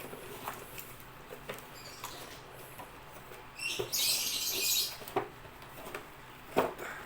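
Toy packaging being handled and opened: small clicks and taps with crinkling and rustling, and a louder burst of crinkling for about a second, roughly four seconds in.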